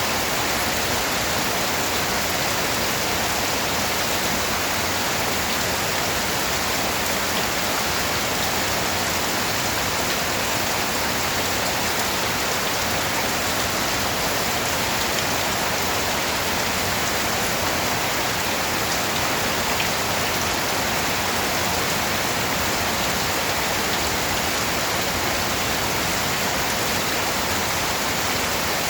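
Steady, heavy rain falling and pattering on surfaces, a dense even hiss with scattered drop ticks.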